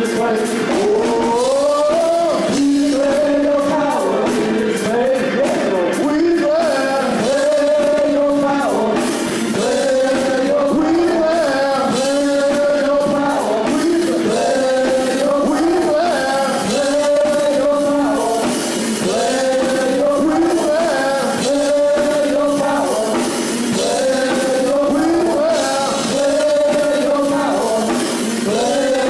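Worship music with singing: voices holding long notes in a repeating melodic phrase over a steady accompaniment.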